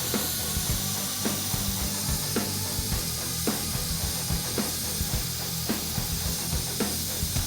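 Background music with a steady beat, about two beats a second, over a constant hiss.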